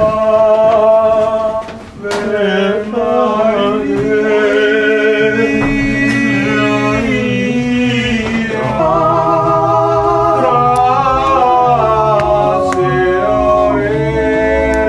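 Male voices singing a song unaccompanied.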